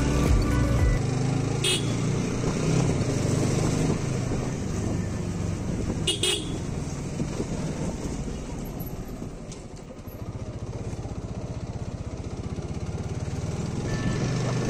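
Motorcycle engine running at low road speed. It eases off around ten seconds in and then picks up again. Two short sharp clicks or knocks cut through it, the louder one about six seconds in.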